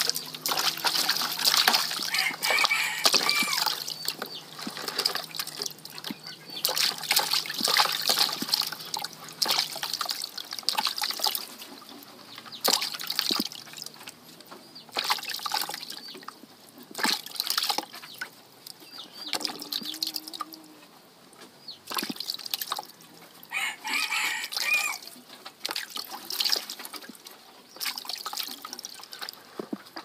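Water splashing and dripping in a plastic basin as a white-breasted waterhen is held in it and washed by hand, water scooped and poured over it in irregular splashes. Short bird calls sound twice.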